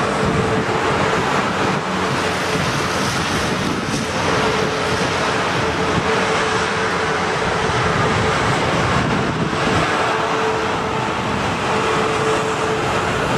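South Western Railway Class 450 Desiro electric multiple unit passing below and running away along the tracks: a steady rumble of wheels on rail with a humming tone through it that fades and returns.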